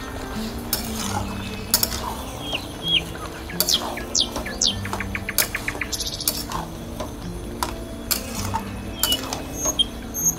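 Metal spatula scraping and clicking against an aluminium kadai as a thick chicken curry is stirred, in irregular strokes. Birds chirp now and then, over soft background music.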